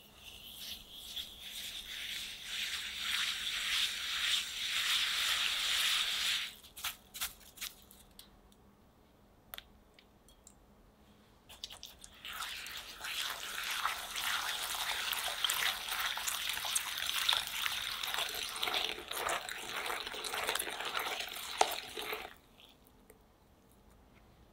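A silicone-coated balloon whisk beats a gritty mix of melted butter and brown sugar against the sides of a glass bowl, first for about six seconds. After a pause with a few light clicks, the whisking resumes for about ten seconds from roughly twelve seconds in, now working the egg and vanilla into the sugar and butter.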